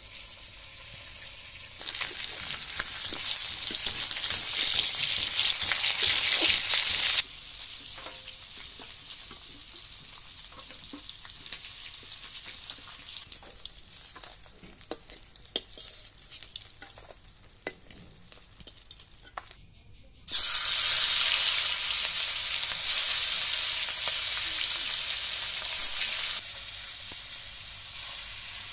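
Pieces of rohu fish frying in hot oil in a wok, a steady sizzle that turns loud for about five seconds from two seconds in and again for about six seconds from about twenty seconds in. In the quieter stretch between, a metal spatula scrapes and taps against the wok as the pieces are turned.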